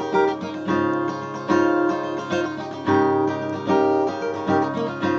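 Acoustic guitar strummed in a steady rhythm, each chord ringing on between strokes.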